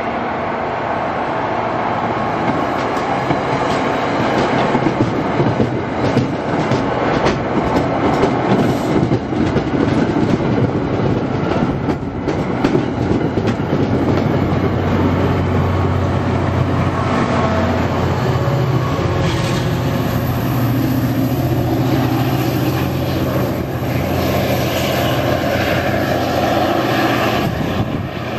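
MBTA commuter train coaches rolling past close by as the train pulls out, wheels clicking over the rail joints. About halfway through the steady low drone of the diesel locomotive's engine comes in as the locomotive passes.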